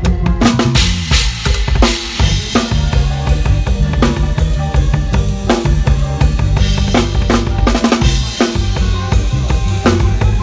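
Band music driven by a drum kit, bass drum and snare keeping a steady beat over a heavy bass line.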